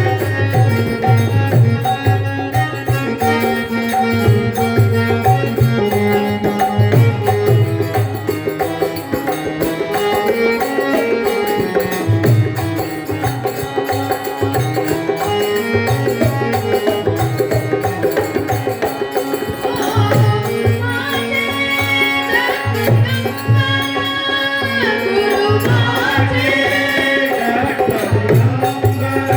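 Bhajan music: a harmonium playing the melody in held notes over a steady dholak beat. A singing voice comes in about two-thirds of the way through.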